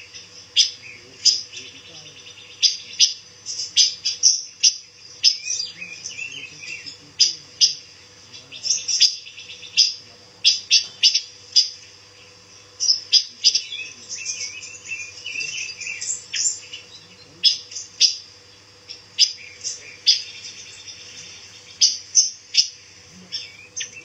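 Caged pancawarna songbirds giving short, sharp, high chirps, irregularly, about one or two a second, over a faint steady hum.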